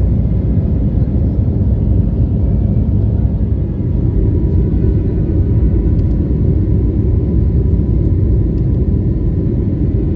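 Airliner cabin noise in flight: a steady, even low rumble of engines and airflow, with a faint steady whine above it.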